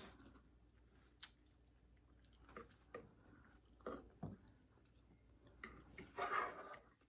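Quiet eating: scattered soft, wet mouth clicks and smacks as loaded nachos are chewed, with a slightly longer, louder one near the end.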